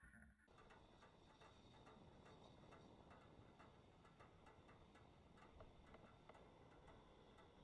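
Near silence: a faint hiss with light, irregular ticks.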